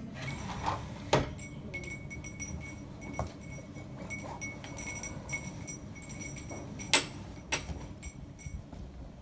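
Sharp clicks and clinks as a window curtain is handled and drawn, the loudest about seven seconds in with another just after. A short high chirp keeps recurring.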